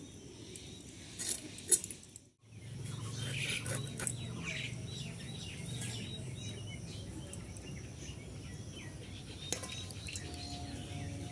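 Small birds chirping over a low hum, with two sharp scraping clicks about a second and a half in as fish scales are scraped against a bonti blade. The sound drops out briefly just after, and soft background music tones come in near the end.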